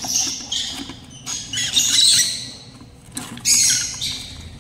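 Lutino lovebirds screeching: about four harsh, raspy calls, each less than a second long, with short pauses between.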